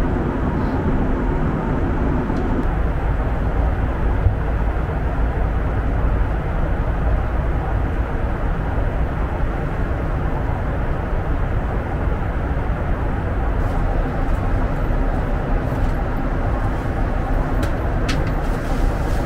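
Steady cabin noise inside a Boeing 737 MAX 8 at cruise: an even, low rush of airflow and engine noise with no change in pitch.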